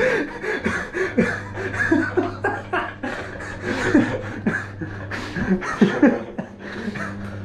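Stifled laughter: snickers and breathy chuckles held back, over a steady low hum.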